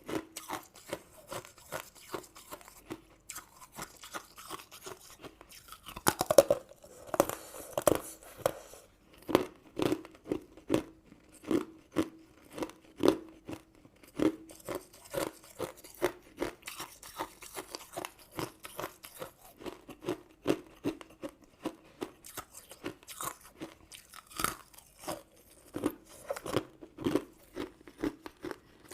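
Close-miked ASMR eating: a person chewing crunchy sweets, with a steady run of crisp crunches about two a second. A louder, denser burst of crunching comes about six seconds in, as of a fresh bite.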